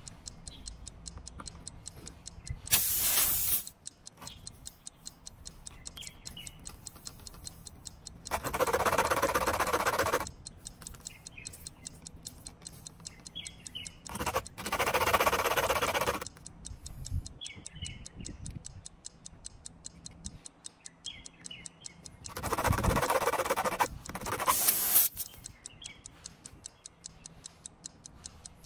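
Steady, fast clock-like ticking, with four loud bursts of rasping, one about three seconds in and others near nine, fifteen and twenty-three seconds, as a steel plug-kit tool is worked in and out of a puncture in a car tire's tread.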